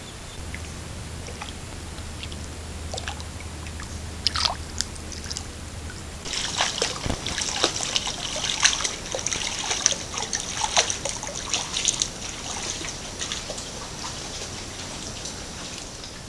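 White-tailed deer wading through shallow swamp water, its steps splashing and sloshing. A few splashes come about four seconds in, then a run of splashing for about six seconds that trails off.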